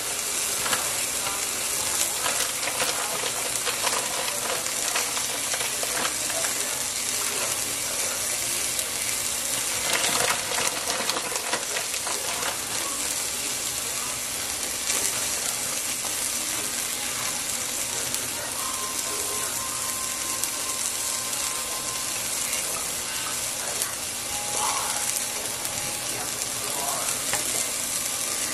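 Steady sizzling hiss of the cauliflower cheese soup cooking in the pot on the stove, with the crinkle of a bag of shredded cheese being handled and tipped in, louder about ten seconds in.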